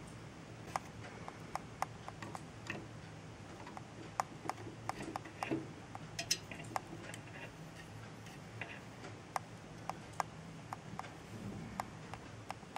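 Irregular small hard clicks and taps, sometimes several a second, over a steady low hum.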